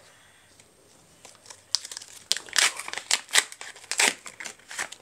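The plastic wrapper of a Teamcoach AFL trading-card pack being torn open and crinkled in the hands: quiet at first, then a dense run of crackling from a little under two seconds in.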